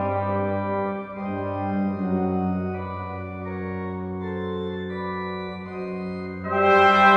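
Pipe organ holding sustained chords that change every second or so. Near the end the brass ensemble comes back in, louder and brighter.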